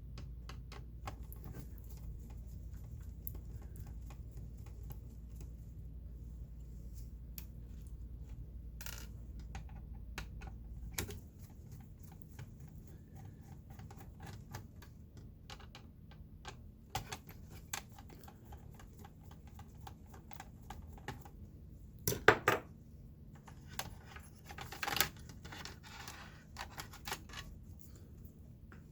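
Scattered clicks and light clatter of small plastic and metal parts being handled while working on a desktop computer, with a louder quick run of clicks about 22 seconds in and another about 25 seconds in. A low steady hum underneath stops about 11 seconds in.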